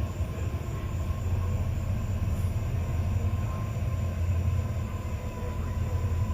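Freight train passing, with a steady low rumble of the train rolling by.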